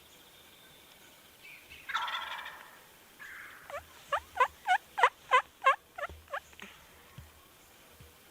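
Wild turkey sounds: a gobble about two seconds in, then a run of about nine sharp yelps, roughly three a second.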